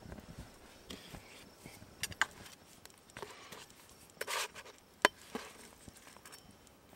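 Metal utensil clinking and scraping against a frying pan and a plastic plate while cooked greens are served onto toast: a few sharp taps, the loudest about five seconds in, with a short scrape just before it.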